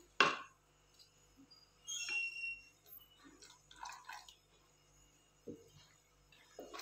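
Custard mixture poured from a glass into hot milk in a nonstick pan, with a wooden spatula stirring. A sharp knock comes just after the start, a brief ringing glass clink about two seconds in, then the liquid pouring and splashing into the pan.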